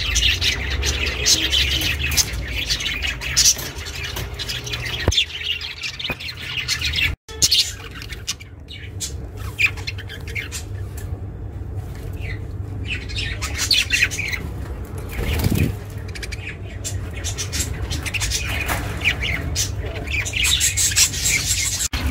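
Budgerigars chirping and squawking in a continuous run of short calls, over a steady low hum. There is a brief break about seven seconds in.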